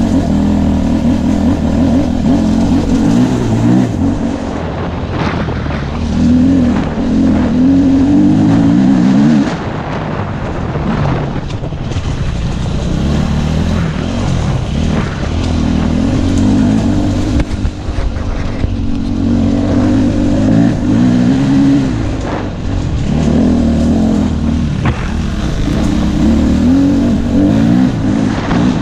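KTM 250 EXC-F enduro bike's single-cylinder four-stroke engine running under the rider, its revs rising and falling with the throttle. It eases off for a couple of seconds about ten seconds in.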